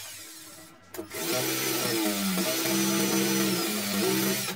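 Cordless drill boring into a concrete wall. The motor winds down at the start, restarts about a second in, runs steadily with small dips in pitch as the bit bites, and stops abruptly near the end.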